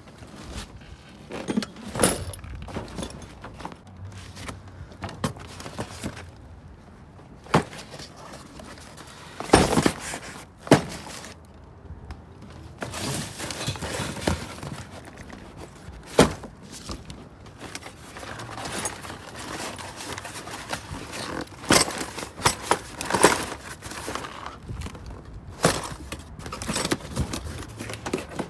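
Loose metal door hardware, hinges and lock parts, clinking and clattering as it is rummaged through and moved into cardboard boxes, with scattered sharp knocks and occasional heavier thuds.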